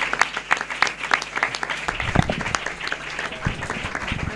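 Room of people applauding, many hands clapping steadily, with a few low thumps from about halfway through.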